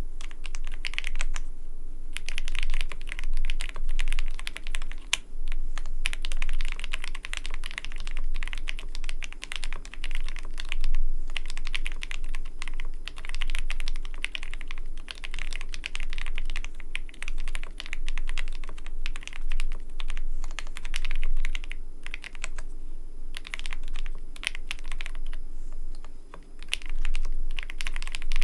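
Typing on a custom mechanical keyboard: quick keystrokes in continuous runs with brief pauses, a creamy keyboard sound.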